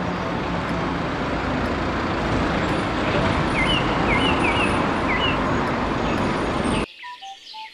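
City street traffic with a single-deck bus driving past: a steady rush of engine and tyre noise, with a few short chirps in the middle. The noise cuts off sharply about seven seconds in.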